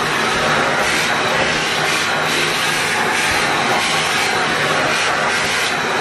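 Shark upright vacuum cleaner running, drawing air through its hose and wand: a loud, steady rushing noise with a faint motor hum beneath, the hiss shifting slightly as the nozzle is moved.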